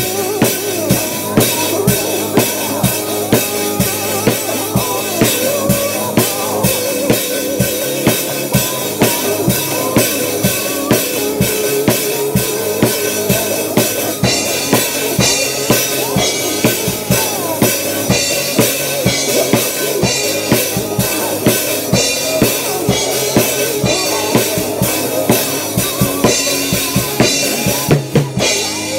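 Acoustic drum kit played hard in a driving rock beat, bass drum and snare with cymbals crashing over it, about two strong hits a second.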